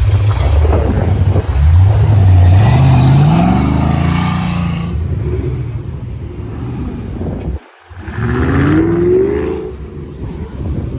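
Car engine accelerating hard, its pitch climbing steadily over a few seconds, then climbing again about eight seconds in.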